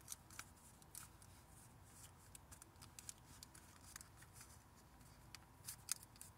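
Faint crinkling of paper being folded and creased flat by fingers, a scattered string of short, sharp crackles.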